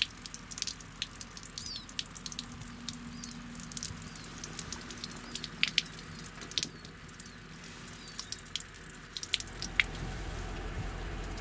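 Water trickling and dripping out of the hull of an Amur aluminium motorboat on its trailer, splashing below in many small irregular drips: the hull draining the water it took on. A low steady rumble joins near the end.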